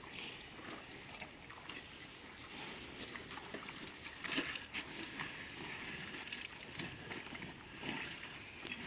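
Cattle-yard sounds of bulls moving and shifting, over a steady noisy background, with a short louder sound about four and a half seconds in.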